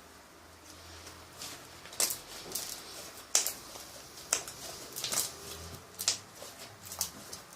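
Homemade slime being stretched and squeezed by hand, giving off irregular sharp pops and clicks, about one a second from roughly two seconds in.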